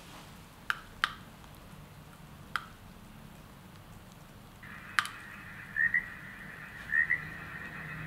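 Button clicks on a portable baby white-noise sound machine. About halfway through, its small speaker starts one of its built-in sounds: a steady high whistle with short chirps about once a second.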